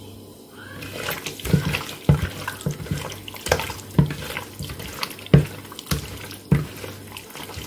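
Hands squishing and turning raw, seasoned chicken pieces in a plastic mixing bowl: wet squelches and slaps of the meat, irregular and about two a second, starting about a second in.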